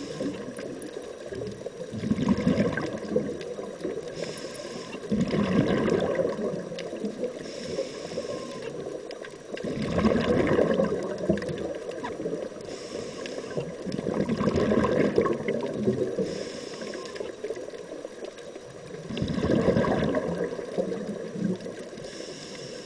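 Scuba diver breathing through a regulator underwater: short hissing inhalations alternate with longer bubbling exhalations, about one breath every four to five seconds.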